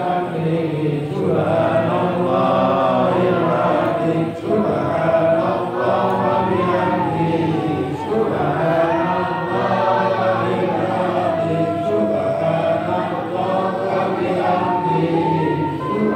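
A group of men chanting together in unison, a collective Islamic devotional chant with many voices blended into one steady sung line.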